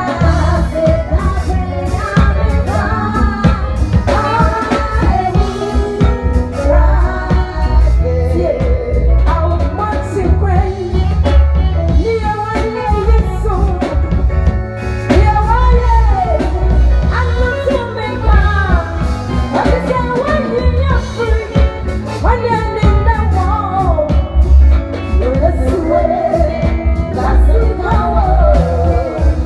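A band playing with a singer: a sung melody over heavy bass and steady drum hits.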